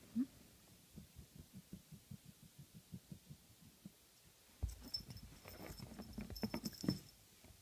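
A cat hunting a mouse in the gap beside a bed. First soft, even tapping about five times a second, then from about two-thirds of the way in a louder scuffle and pounce with high tinkling.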